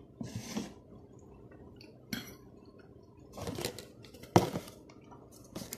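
Eating at a plate: several short, separate clinks and scrapes of cutlery on a dish, the sharpest and loudest knock coming a bit past four seconds in.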